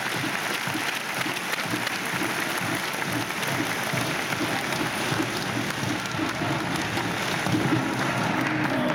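Arena crowd applauding and cheering after a point is won in a table tennis match. It swells suddenly just before and stays steady throughout.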